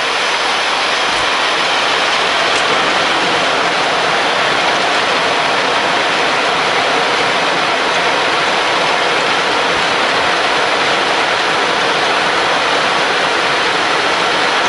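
Steady loud rushing roar inside a Boeing 737-800 cockpit on the landing rollout just after touchdown: engine and airflow noise as the jet decelerates down the runway, an even noise without any distinct tone.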